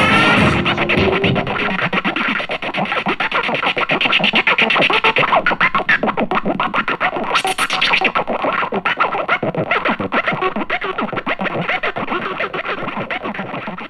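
Improvised electronic music played live on small synthesizers and a keyboard controller: a dense, glitchy texture of rapid clicks over shifting pitched tones, easing down a little near the end.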